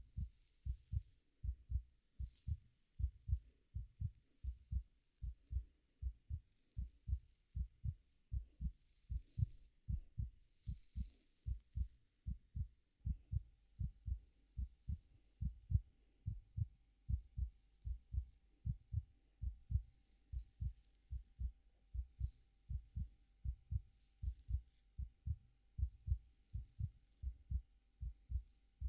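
Steady heartbeat: low double thumps in an even rhythm. Over it, soft intermittent rustling of fingers playing in hair.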